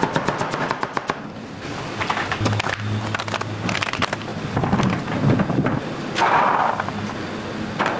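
A knife chopping radish on a plastic cutting board in fast, even strokes, stopping about a second in. Irregular clattering and knocking from handling the cut produce follow, with a low hum for a while.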